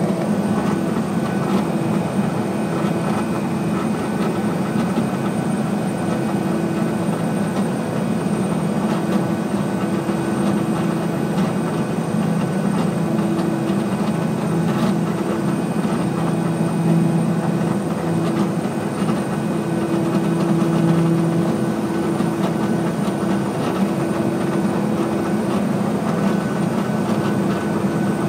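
Cockpit noise of a Piaggio P180 Avanti on final approach: the steady drone of its twin pusher turboprop engines and propellers with airflow, a low hum that swells and fades at times over a faint high whine.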